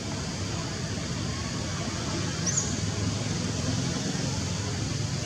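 Steady outdoor background noise with a low rumble under a faint hiss, and one short high bird chirp about two and a half seconds in.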